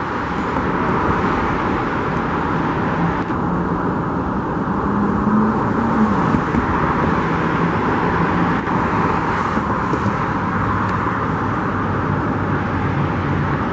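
Steady road traffic: vehicles driving past on a busy street, a continuous rush of tyre and engine noise with a low engine hum under it.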